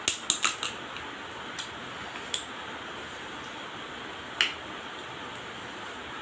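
Cooked crab shell cracking as a claw is bitten: a quick run of sharp cracks in the first second. A few single cracks follow as pieces of shell are pulled apart, over a steady hiss.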